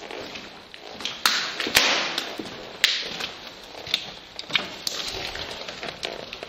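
Footsteps crunching over debris, with irregular sharp clicks and cracks about every half second to a second.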